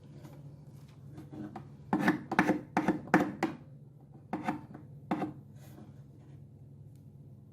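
Short scraping strokes: a quick run of about five, then two more after a short pause.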